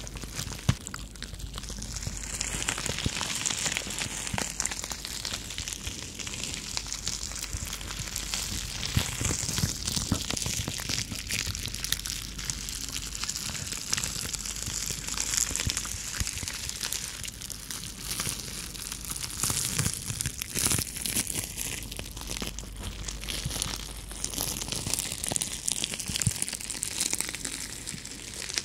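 Long fingernails scratching and rubbing a rolled-up sheet of bubble wrap, a steady, dense crinkling and crackling with many small clicks.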